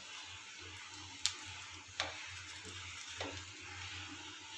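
Thin rice-flour and urad-dal crepe (soru chakli) sizzling softly in a little oil in a frying pan, with a few light clicks about one, two and three seconds in.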